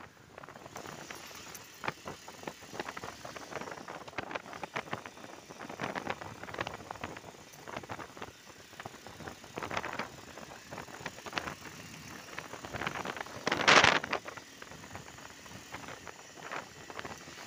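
Motorcycle riding along a paved road: steady road and wind noise, broken by irregular rattles and knocks. One loud rushing burst comes about fourteen seconds in.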